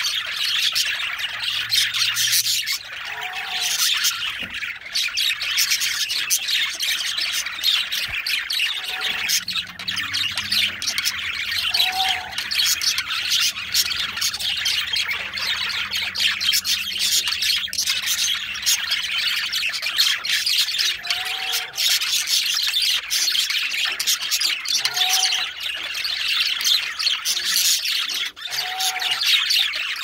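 Male budgerigar (parakeet) warbling: a continuous, rambling chatter of quick chirps, clicks and squawks, with a short, lower note every few seconds.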